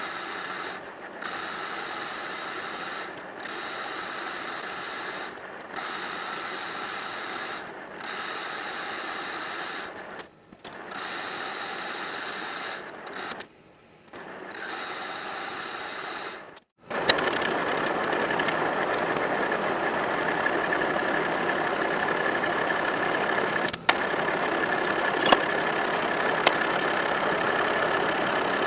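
Manual metalworking machine tool running, a steady geared mechanical whir, in a string of short clips broken by brief dropouts every few seconds. About 17 seconds in it switches to a louder, steadier run with a high whine throughout.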